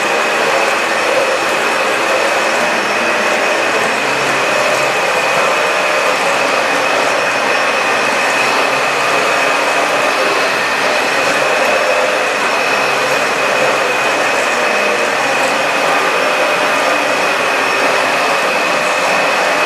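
Dyson DC65 upright vacuum cleaner running steadily while vacuuming a bare floor: a loud, even rush of air with a constant high-pitched whine from the motor.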